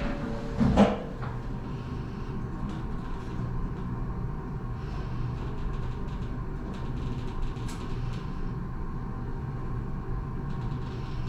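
Toshiba lift car: a single clunk about a second in, then a steady low hum as the car travels down between floors.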